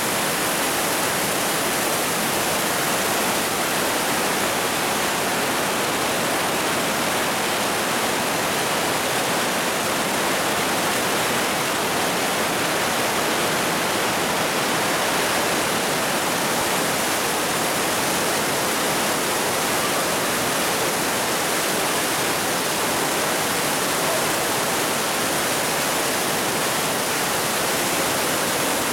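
Mountain river in spate after a rainstorm, white water rushing through a narrow rock gorge, with water showering down from the gorge walls: a loud, steady rush.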